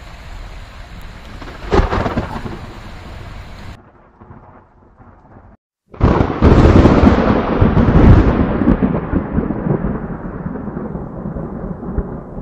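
Thunderstorm: rain hiss with a sharp thunder crack about two seconds in. After a brief break, a loud close thunderclap comes about six seconds in and rolls on, slowly fading.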